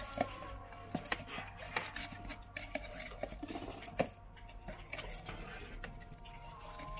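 Metal forks clicking and scraping against a metal serving tray and plastic cups as lamb meat is pulled apart and dropped into cups of broth: irregular sharp clicks about every second, the loudest about four seconds in.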